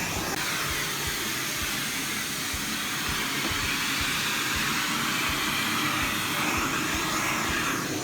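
Miele Blizzard CX1 bagless cylinder vacuum cleaner running with a steady whooshing hiss of motor and airflow.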